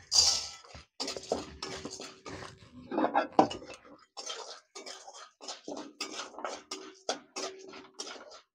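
Dried maize kernels poured with a rattling rush into an iron kadhai of hot oil. Then a metal spatula scrapes and stirs them around the pan in repeated short strokes, with clinks of metal on metal.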